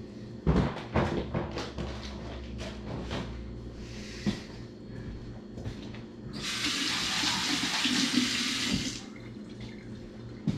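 Kitchen tap running for about two and a half seconds, starting a little over six seconds in. Before it, a few sharp knocks and clatters, as of dishes being set down, near the start.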